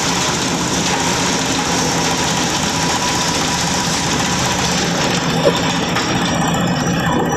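Single-cylinder diesel engine running steadily, driving a multipurpose chopper-grinder.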